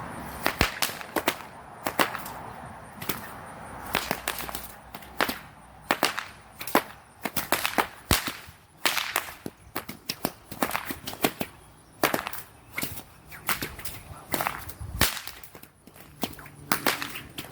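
Performance whips cracking in a fast, irregular run, about two sharp cracks a second, uneven in strength.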